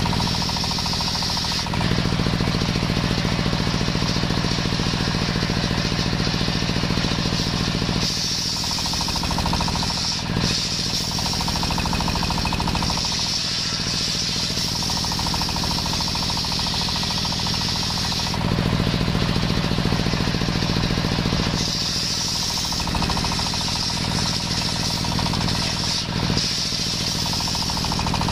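Large belt-driven circular saw bench ripping a young coconut trunk into beams: a loud, steady machine drone with a bright hiss from the blade in the wood. Its tone shifts several times as the log is fed through.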